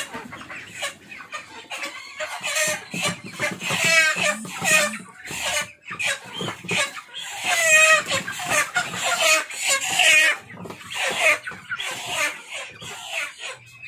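Chickens clucking and squawking in alarm as one is caught by hand. Loud, wavering squawks come about four and eight seconds in.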